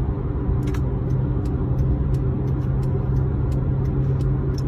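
Steady low rumble of a running vehicle, with short light clicks a couple of times a second on top.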